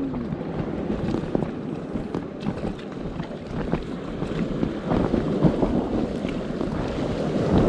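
Wind buffeting the microphone over sloshing and splashing water, with scattered small splashes and knocks.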